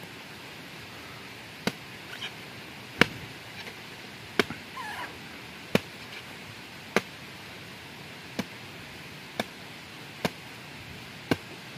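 Machete blade chopping into a husked, sprouted coconut: nine sharp strikes, roughly one a second, to split the shell open.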